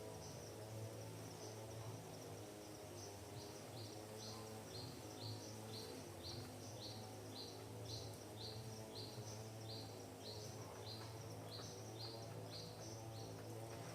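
A bird repeating one short, high note about twice a second, over a steady low hum.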